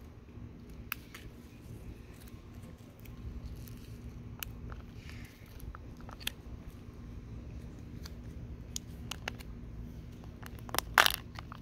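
A Kinder Surprise chocolate egg being unwrapped and opened by hand: scattered foil crinkles and small clicks and cracks, with a louder burst of clicks and crackling near the end. A steady low hum runs underneath.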